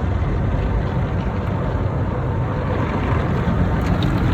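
Car wash spray jets spraying water onto the car's sides and wheels during the rinse cycle, a steady rushing noise with a heavy low rumble, heard from inside the car.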